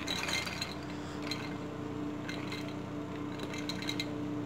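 Soaked chana dal (split chickpeas) being tipped into a stainless-steel mixer-grinder jar: a few scattered light clicks as the lentils land, over a steady low hum.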